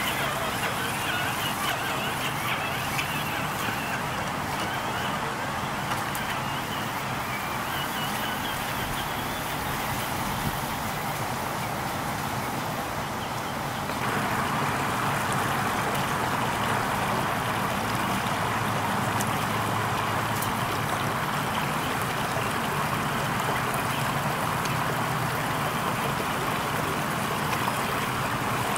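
Creek water rushing and trickling steadily over rocks, with a faint low hum underneath; it gets a little louder about halfway through.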